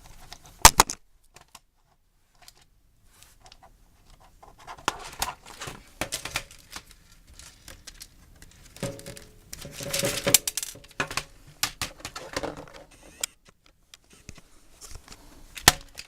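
Plastic clicks, rattles and scraping from an HP keyboard's case and parts being handled during a teardown, with a sharp click about half a second in and another near the end.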